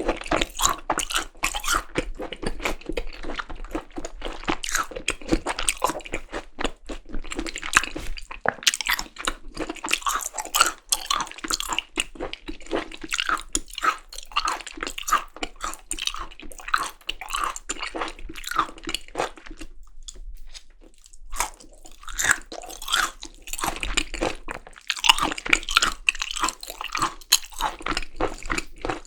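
Close-miked chewing and biting of Korean seasoned raw beef tartare (yukhoe), with wet, crunchy mouth sounds that pause briefly about two-thirds of the way in.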